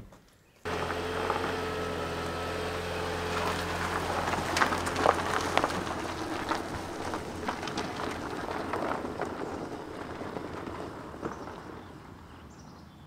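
A Toyota Prius pulling away down a gravel road. A steady low hum and the crackle of tyres on gravel, with scattered sharp crunches, fade gradually as the car drives off.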